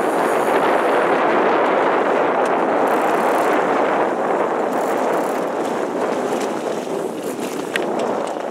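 Steady rushing noise of wind on the microphone and water passing a moving camera boat, with a faint click near the end.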